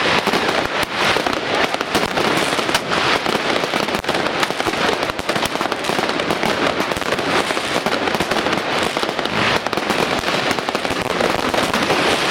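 New Year's fireworks and firecrackers going off without a break: a dense, continuous crackle of sharp bangs, many overlapping at once.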